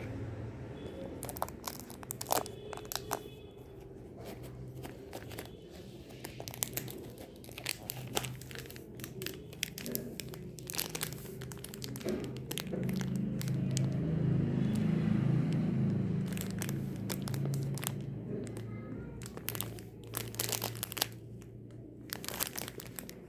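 Plastic and paper packaging being handled, with irregular crinkling and crackling throughout, over a low rumble that swells about halfway through and then fades.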